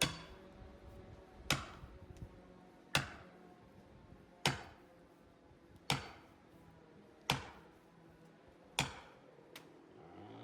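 Seven heavy axe blows, evenly spaced about a second and a half apart, each a sharp crack with a short ringing tail, followed by one light tap near the end.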